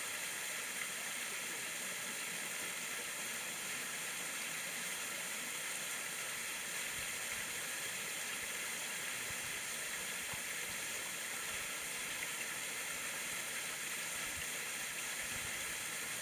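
Steady rushing of water at a watermill: the mill stream pouring and splashing without a break.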